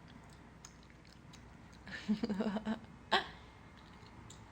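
Chewing gum close to the microphone: a few faint wet mouth clicks, a short hum with the mouth closed about two seconds in, then one sharp smack of the gum a second later.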